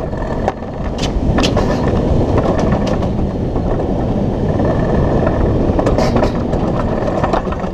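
Alpine coaster sled running fast along its tubular steel track: a steady rumble of wheels on rail, with a few sharp clacks about a second in and again around six seconds in.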